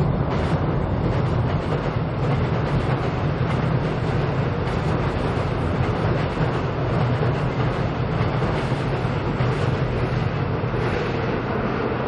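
Seoul Subway Line 7 train running across Cheongdam Bridge overhead, a steady low rumble that holds level throughout.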